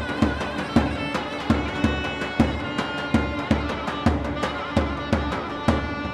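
String orchestra playing with a solo wind instrument, over a steady beat on a large double-headed drum (davul) struck about two to three times a second.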